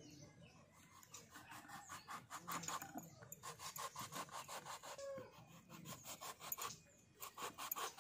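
Faint rasping strokes of a kitchen knife sawing through a small round brinjal, many short back-and-forth cuts in a quick rhythm as it is slit crosswise.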